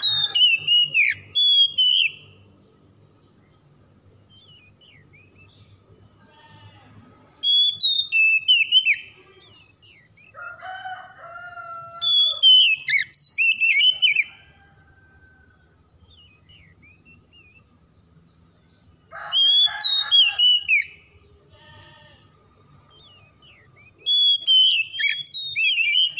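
Oriental magpie-robin (kacer) singing: loud, rapid whistled phrases in about six bursts of a second or two, separated by pauses of several seconds.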